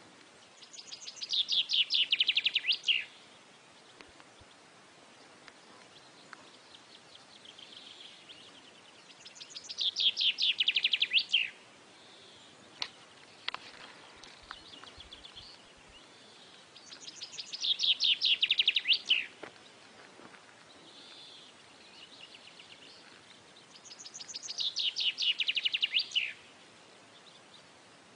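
A bird's call: a fast trill of high chirps lasting about two seconds, ending in a falling sweep. It repeats four times about eight seconds apart, the same call each time, with fainter chirping in between.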